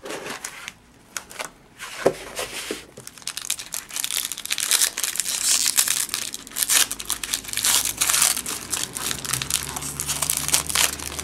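Foil wrapper of a trading-card pack being torn open and crinkled by hand: irregular crinkling and tearing, with a few light handling clicks at first, getting denser and louder from about four seconds in.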